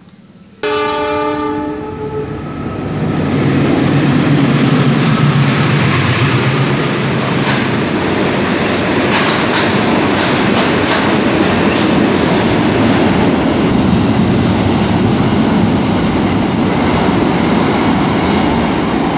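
Train horn sounding once for about a second, then a diesel-hauled train passing close through the station at speed: a loud, steady rumble and rush of wheels on rail with some clatter, the locomotive's engine heard as a low hum for the first few seconds.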